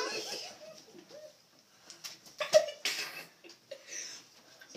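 Children's wordless reactions to extremely sour Warheads candy: a strained cry trailing off at the start, a few short whimpers, then two short, sharp bursts like coughs about two and a half and three seconds in.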